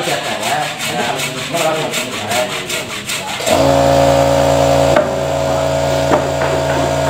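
Rhythmic rubbing or scraping strokes on wood, about four a second. About three and a half seconds in, an electric motor starts abruptly and runs with a steady hum.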